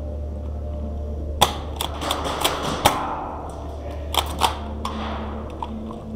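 Airsoft guns shooting: a dozen or so sharp, irregular snaps, most in a cluster from about a second and a half in and a few more around four to five seconds in, over a steady low hum.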